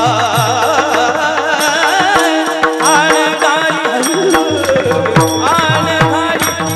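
Devotional kirtan singing of a melody in raga Bhairavi: a voice singing long, heavily ornamented wavering lines over a steady harmonium drone, with a pakhawaj drum playing a regular beat of deep strokes whose pitch slides down after each hit.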